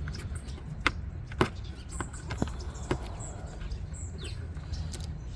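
Several sharp clicks, loosely paired about half a second apart, over a steady low hum, with a few faint high chirps.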